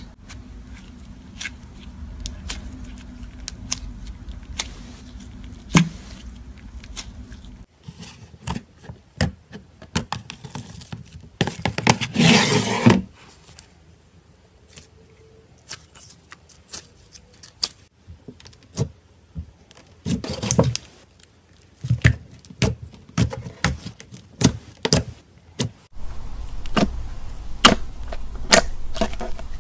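Clear slime being squeezed, stretched and pressed by hand, giving off many sharp irregular clicks and pops, with a dense crackling squelch about twelve seconds in.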